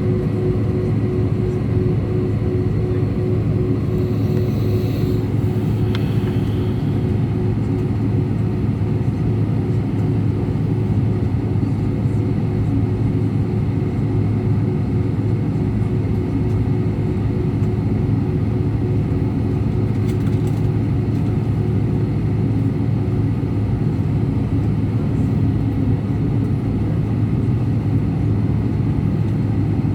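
Steady rumble of engines and airflow inside the cabin of an Airbus A319 airliner, with a strong, even low hum and a fainter higher tone over it.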